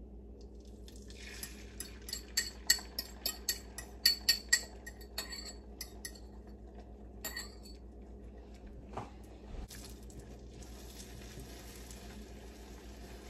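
Metal utensil clinking quickly against a dish while stirring or beating breakfast eggs and sausage, a rapid run of clinks for several seconds, then a few scattered clinks. From about ten seconds in, a faint steady hiss of food frying in a pan.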